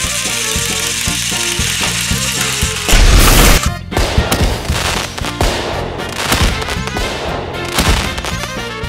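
Background music; about three seconds in, a loud fireworks boom, followed by a string of firework bangs and crackles over the music.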